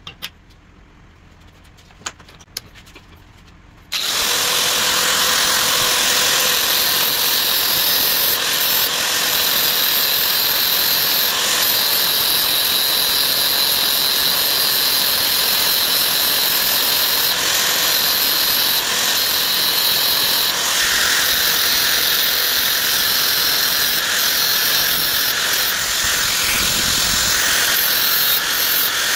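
A few sharp metal clicks, then about four seconds in a power grinder's abrasive disc cuts in suddenly and grinds steadily on steel, dressing down the weld built up on a broken gear tooth to reshape it.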